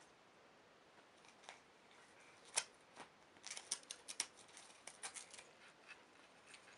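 A cat biting and tearing at a scrap of crumpled paper: faint, sharp paper crackles and snips, with a quick flurry of them around the middle.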